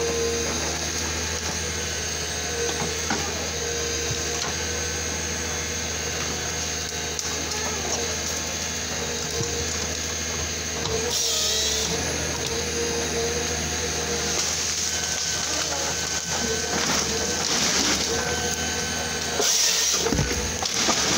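Komatsu 901XC harvester's diesel engine and hydraulics running steadily with a constant whine while the C93 harvester head is moved. Near the end the head's chain saw cuts through a tree trunk in a short, loud burst.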